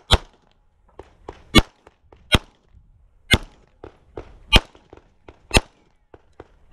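Glock 17 9mm pistol firing six shots, roughly one a second, with fainter pops and clicks between them; the shots stop about a second before the end.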